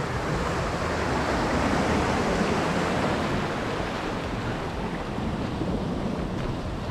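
Ocean surf surging and washing through a narrow rocky channel, a continuous rush that swells a second or two in and then eases off, with some wind on the microphone. The swell is running high.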